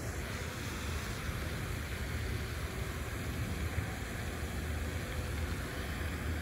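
Steady wind rumble on the microphone over an even outdoor hiss.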